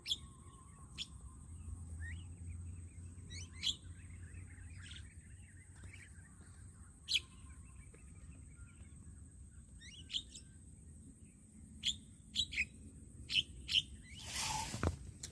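Birds giving short, sharp chirps at irregular intervals, coming more often near the end, over a faint steady high tone. Near the end comes a brief loud rush of noise.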